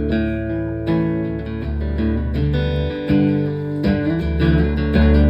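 Live band playing a song's instrumental introduction: strummed guitar over deep bass notes that change every second or so.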